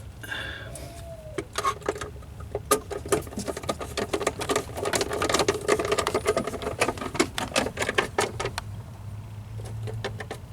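Rapid, irregular clicking of a hand ratchet turning a Torx screw on the car's lamp assembly, in a dense run of several seconds that stops near the end.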